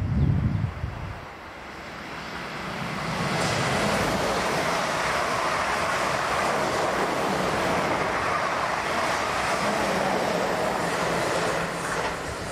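Pair of Class 444 Desiro electric multiple units running fast through the station: a rush of wheels on rail and air that builds over the first few seconds, holds loud and steady for most of the passage, and drops away near the end. A brief low rumble comes in the first second.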